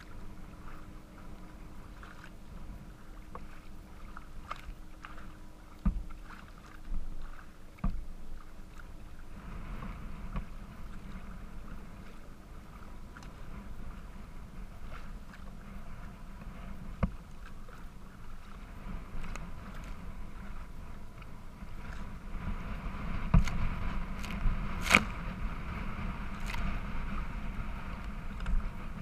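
Kayak under way on choppy water: water splashing and lapping along the plastic hull, with a low rumble of wind on the microphone. A few sharp knocks and splashes stand out, growing busier and louder near the end.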